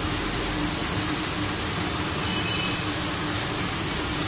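Steady background hum with an even hiss, unchanging throughout.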